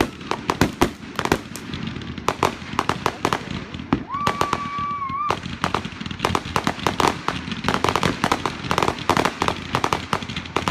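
Fireworks display going off: a dense run of sharp pops and bangs, many a second, throughout. About four seconds in, a steady whistle sounds for just over a second.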